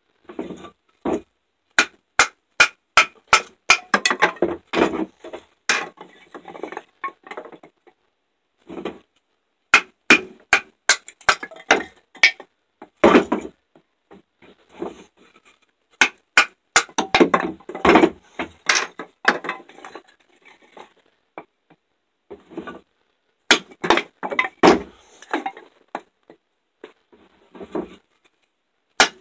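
MTech fixed-blade knife shaving curls down a wooden stick to make a feather stick: sharp clicks and scraping strokes come in bursts a few seconds long, separated by short pauses.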